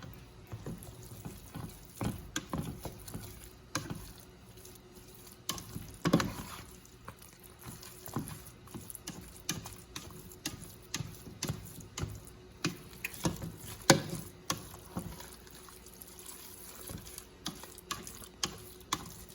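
Spoon stirring canned chicken into thick gravy and vegetables in a skillet: irregular wet stirring sounds with scattered scrapes and knocks against the pan.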